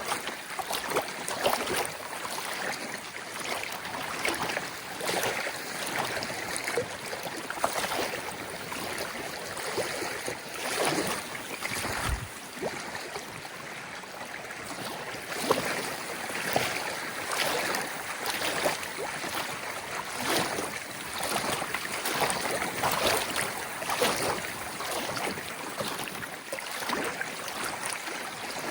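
Small waves on a pond lapping and splashing against the shore in a continuous, irregular patter of little splashes.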